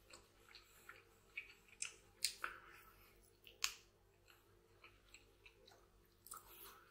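A person chewing and gnawing meat off a piece of braised oxtail held in the hands, with scattered sharp mouth clicks and smacks. The loudest come a little past two seconds in and about three and a half seconds in.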